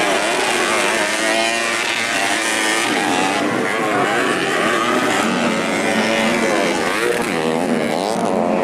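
Several motocross dirt bike engines revving, their pitch rising and falling as the riders open and close the throttle, overlapping one another.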